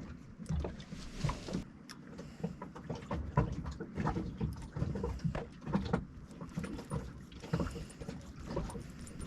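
Irregular small clicks, taps and knocks of hand-handled hardware, from fitting parts back onto a sailboat's steering pedestal: the little dust caps on the new shift and throttle cables.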